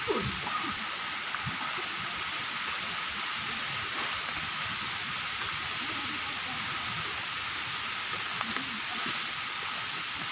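A steady, even hiss, with faint distant voices now and then and a short louder bump right at the start.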